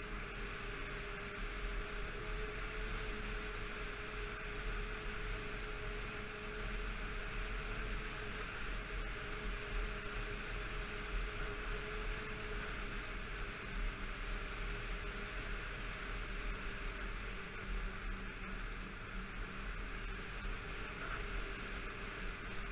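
Snowmobile engine running at a steady cruising speed, a constant drone that drifts slightly in pitch over a steady rushing noise of wind and track.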